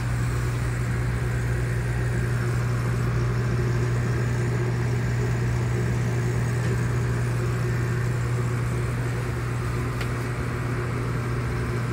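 Steady low hum with a hiss over it from the quarantine room's aquarium equipment running, such as pumps and circulation gear.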